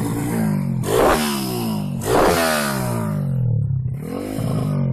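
Honda Grand 130cc single-cylinder four-stroke motorcycle engine running and being revved with quick throttle blips. Its pitch climbs sharply and falls back twice, about a second and two seconds in, then rises again briefly near the end, settling back toward idle between blips.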